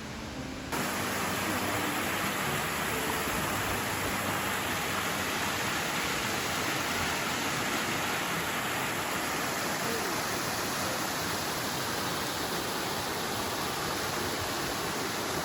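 Waterfall, rushing water as a steady, even noise that comes in suddenly under a second in.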